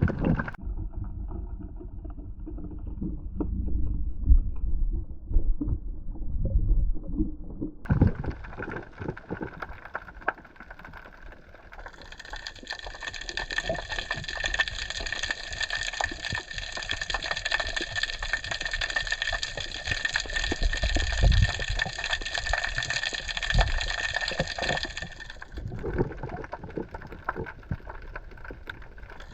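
Underwater sound picked up by a diver's camera: water movement and dense crackling. From about twelve seconds in, a steady high whine of several tones is heard over it for roughly thirteen seconds.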